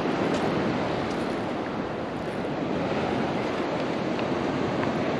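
Steady rush of surf breaking on a beach, mixed with wind.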